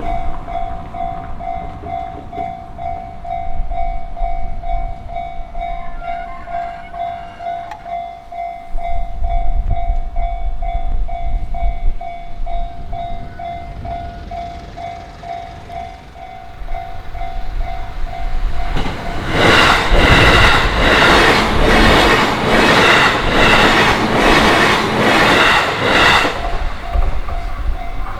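Japanese level-crossing warning bell ringing rapidly and steadily while a train's rumble builds. About two-thirds of the way through, an electric train on the JR Yokohama Line passes at speed for several seconds, its wheels clattering rhythmically over the rail joints and drowning out the bell, which is heard again as the train clears.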